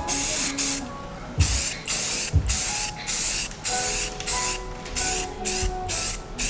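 Aerosol spray-paint can spraying in a run of short, loud hissing bursts with brief gaps between them, as a differential housing is painted.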